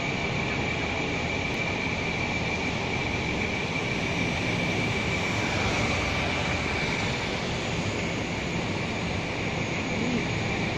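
Steady whirring of a DJI Mavic Pro quadcopter's propellers in flight: a constant high whine over an even rushing noise, unchanging in pitch.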